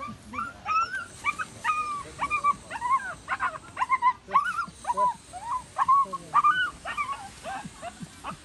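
A trapped puppy whimpering and yelping over and over, short rising-and-falling cries two or three a second, the distress cries of a pup stuck in a gap under a concrete wall.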